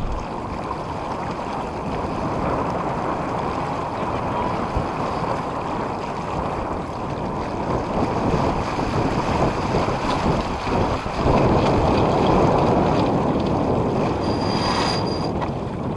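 Water rushing and splashing past the hull of a 29-foot sailing yacht under way, with wind buffeting the microphone. A few brief clicks near the end.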